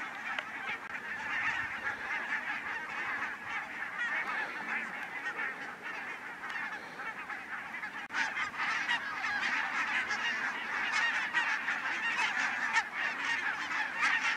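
A large flock of barnacle geese calling, a dense, continuous chatter of many short honks overlapping. It grows a little louder after a brief dip about eight seconds in.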